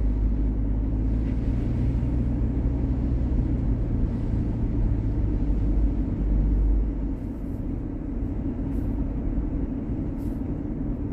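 Steady low rumble of a vehicle driving, heard from inside the cab: engine and road noise. The deepest part of the rumble drops away about seven seconds in and it gets a little quieter.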